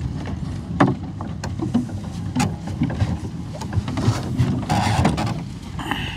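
Low rumble aboard a small fishing boat, with a few sharp knocks and clatters scattered through it.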